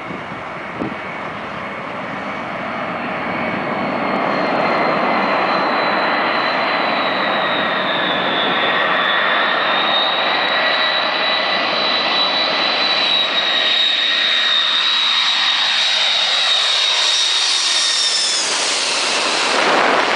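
Boeing 747's four jet engines on landing approach, flying low overhead: a dense engine noise with a steady high whine, growing louder over the first few seconds. Near the end the whine drops in pitch as the aircraft passes overhead.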